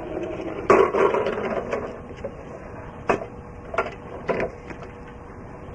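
Lawn mower being pull-started: a sharp pull of the recoil starter about a second in, fading over about a second, then a few short clicks and knocks. The engine does not catch and run.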